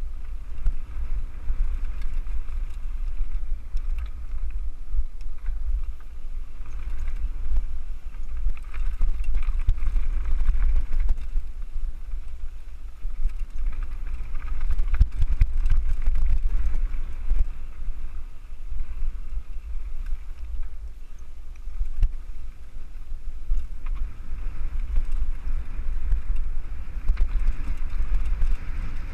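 Wind buffeting the microphone of a helmet camera on a mountain bike riding fast downhill, a heavy rumble, with a hiss of tyres on loose stony trail that swells and fades and scattered clicks and rattles from the bike over the rough ground.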